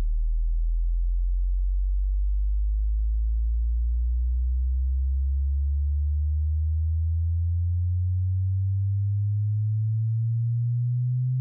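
Pure sine test tone of a hearing-test frequency sweep, gliding slowly and steadily upward from a deep bass hum to a low hum.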